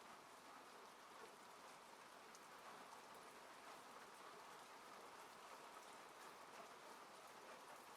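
Faint, steady rain heard from inside a car, an even hiss with scattered small drop ticks on the body and glass.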